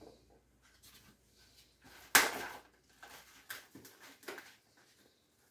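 Kitchenware handled at a sink: one sharp clatter about two seconds in, then a few lighter knocks.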